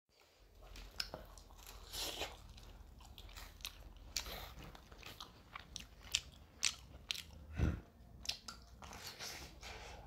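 A person eating pizza close to the microphone: bites and chewing, with irregular sharp clicks and wet mouth noises a few times a second, and one louder, deeper sound about three-quarters of the way in.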